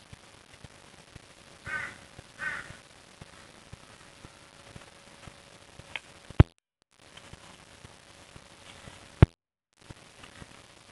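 A crow cawing twice, about two seconds in. Later come two sharp clicks, each followed by a moment of dead silence.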